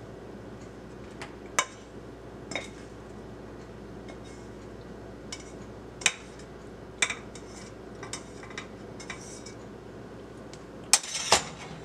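A kitchen utensil scraping and clinking against a skillet and a ceramic serving bowl as stir fry is pushed out of the pan: scattered short clinks, the two loudest near the end, over a steady low hum.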